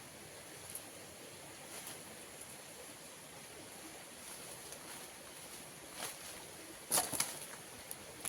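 Steady outdoor background of a running stream with a constant high-pitched hiss, broken by a few sharp clicks and knocks, the loudest short cluster near the end.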